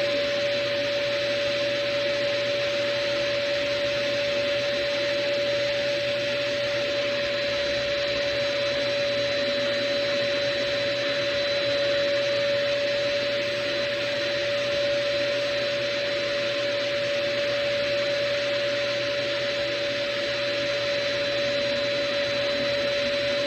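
RevAir reverse hair dryer running steadily: its suction motor gives a constant rush of air with a steady whine.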